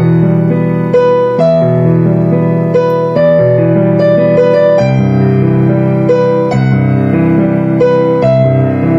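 Background music on piano or electric piano: a slow melody of single notes, a new one struck about every half second to second, over held low chords.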